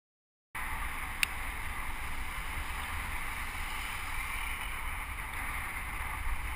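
Wind buffeting the microphone of a bicycle-mounted camera, with road noise from riding at speed, starting abruptly after a brief silence. A short sharp click about a second in.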